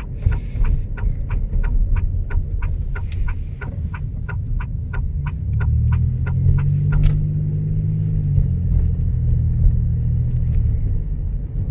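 Turn-signal flasher clicking inside a Chevrolet Impala's cabin at about three and a half ticks a second while the car slows and turns, the clicking stopping about seven seconds in. The engine's low drone then grows louder as the car pulls away in first gear.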